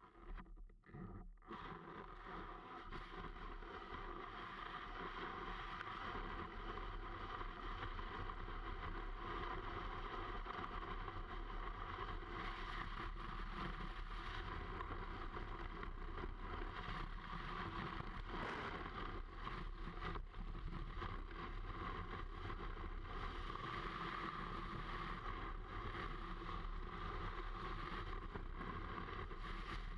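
Steady rushing hiss of a snowboard sliding over snow, picked up by a camera mounted on the board's nose. A few knocks come right at the start, then the hiss builds over the first few seconds and holds.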